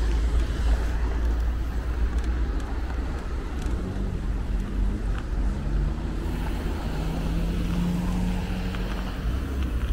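City road traffic under a steady low rumble, with the hum of a passing vehicle's engine from about four seconds in.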